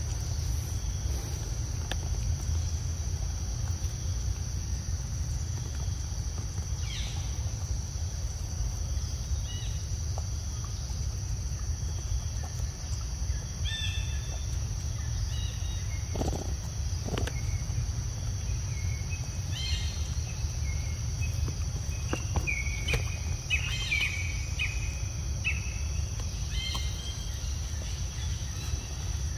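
Outdoor ambience: insects keep up a steady high-pitched drone over a constant low rumble, while birds give short chirps now and then, most of them in the second half. Two brief low knocks come a little past the middle.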